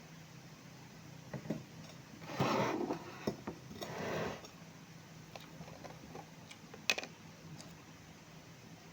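Eating at a plate: a few light clicks of dishes or cutlery, and two short noisy bursts about two and a half and four seconds in.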